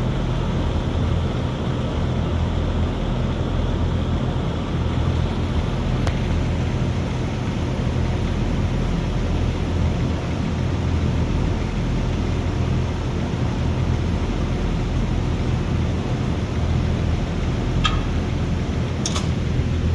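Aronson welding positioner's electric tilt drive running steadily as it tilts the table back: an even mechanical hum with a low steady drone. Two sharp clicks come near the end.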